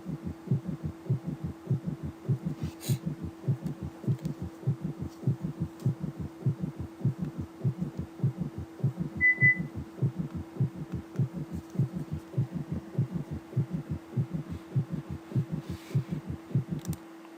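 Recorded heart sounds of a tachycardic patient with a summation gallop: the third and fourth heart sounds merge into a single extra sound in diastole, giving a fast, galloping rhythm of low thumps over a steady hum. This kind of gallop is found in patients worsening from heart failure.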